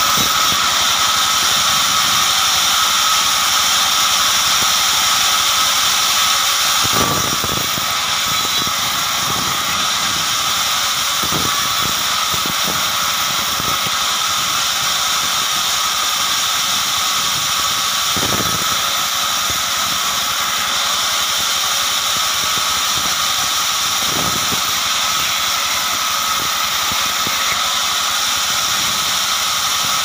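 Vertical band saw running steadily, its blade cutting through a short log at first, with a steady high-pitched whine over the noise of the machine. The machine gets slightly quieter about seven seconds in, and a few dull knocks come at intervals.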